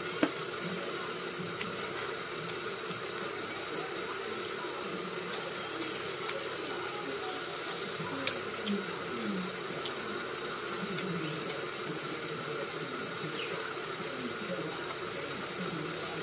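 Steady background hiss with a few faint, scattered clicks as two people eat momos by hand from plates.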